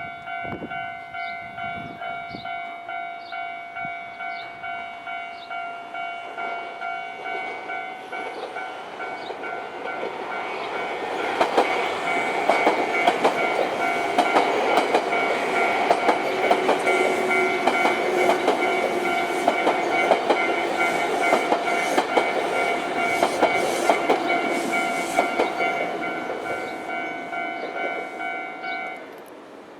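Japanese level-crossing alarm sounding its repeating electronic bell, about one and a half strikes a second. From about 11 seconds in, a train passes over the crossing for roughly a quarter of a minute, its wheels clattering over the rail joints. The train fades and the bell stops shortly before the end.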